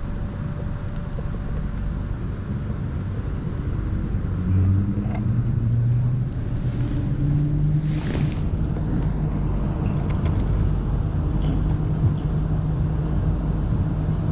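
Electric city tram heard from inside the car, running along the street: a steady low rumble of the running gear with the traction motors' whine rising in pitch as it speeds up, from about four seconds in. A brief hiss comes about eight seconds in.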